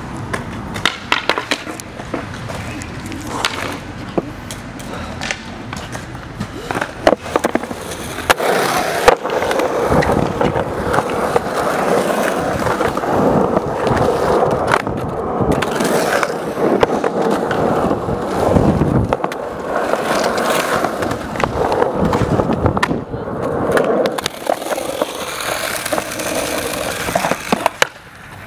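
Skateboard wheels rolling over the concrete of a skate park bowl, a steady rumble broken by scattered clacks and knocks of the board and trucks.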